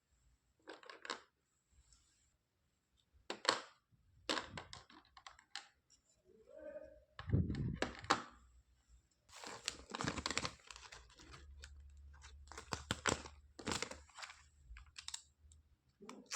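Small plastic toy pieces being handled: irregular clicks and clatter with some rustling.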